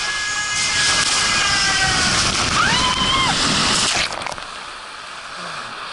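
Inflatable tube on a water slide, rushing down the flume in a loud, steady wash of running water, with a short high squeal partway through. About four seconds in it splashes into the pool and the sound drops to a quieter, muffled wash.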